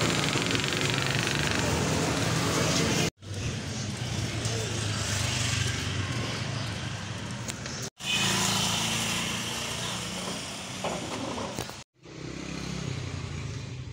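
Street ambience of motor traffic, with motorcycle engines running and some voices. The sound cuts out briefly three times, about three, eight and twelve seconds in.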